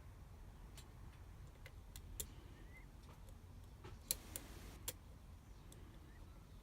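Faint, sparse clicks of a lock pick working the pin stacks inside a Mul-T-Lock Interactive cylinder held under tension: about six single ticks, a few close together about four seconds in, over a low steady hum.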